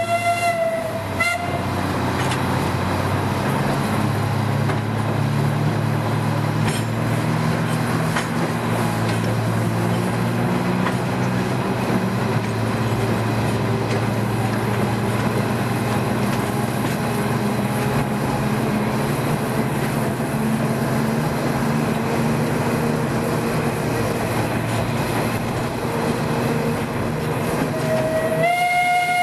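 Small steam train running, heard from a wagon behind the locomotive: the locomotive's whistle sounds for about a second at the start and again near the end, with the steady running noise of the train in between.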